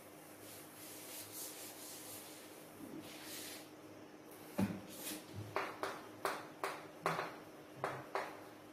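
Cloth duster wiping a chalkboard, a soft rubbing. About halfway through, chalk starts writing on the board: a string of about ten short, sharp strokes.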